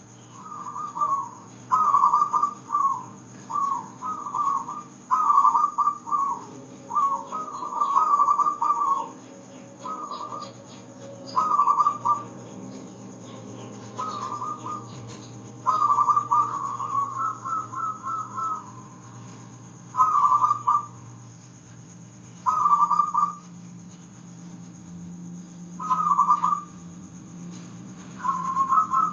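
Zebra dove (perkutut) cooing: short, rapid, trilled coo phrases repeated every second or two, with longer pauses between phrases in the second half.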